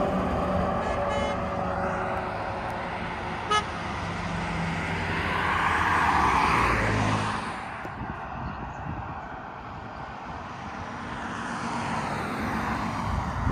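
A tractor-trailer's diesel engine drones, its tone slowly falling as the truck drives off. A short sharp toot comes about three and a half seconds in. The tyre rush of a passing van swells and fades around six to seven seconds in, and light road traffic follows.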